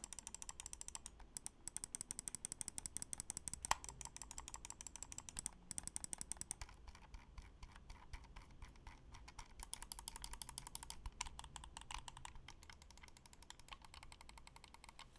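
Faint, rapid, continuous clicking of mechanical switches, many clicks a second, with one sharper click a little under four seconds in.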